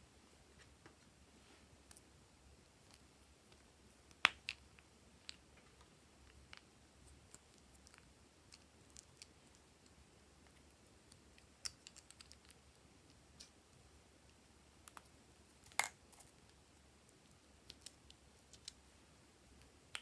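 Small plastic pieces clicking and tapping as they are handled, in a quiet room. There is a sharp click about four seconds in, a cluster of lighter ticks around twelve seconds, and the loudest click near sixteen seconds.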